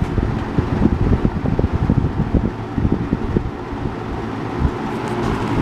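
Robeson model 2306 box fan running on its low speed: a steady motor hum with the rush of air from the blades gusting over the microphone.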